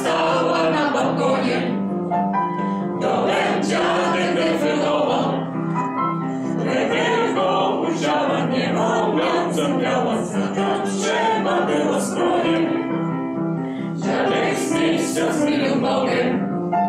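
A choir and audience singing a Polish song together with keyboard accompaniment.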